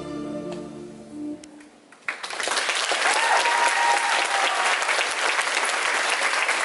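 Recorded music fades out on its last note, and about two seconds in the audience breaks into applause that continues steadily.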